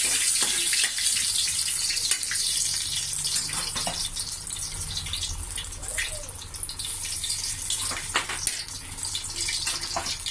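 Ginger strips sizzling in hot oil in a wok: a steady hiss with scattered sharp pops and crackles.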